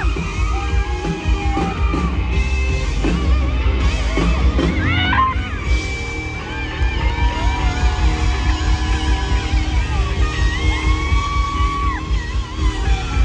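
Live band playing loud through a concert sound system, with a heavy pulsing drum-and-bass low end and guitar lines above it, heard from in the crowd.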